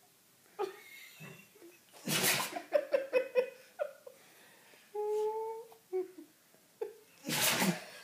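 Weimaraner sneezing twice: a sharp, loud burst about two seconds in and another near the end, with people laughing after the first.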